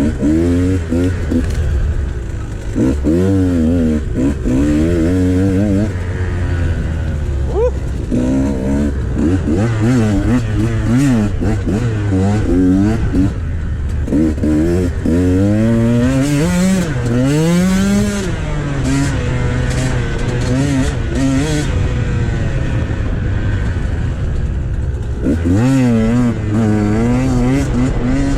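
2014 KTM XC300 dirt bike's two-stroke engine being ridden hard, revving up and dropping back over and over as the throttle is worked.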